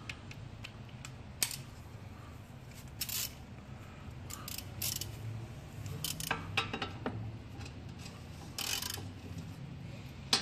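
Hand ratchet wrench with a socket on a long extension, clicking in several short runs as a suspension bolt is turned by hand.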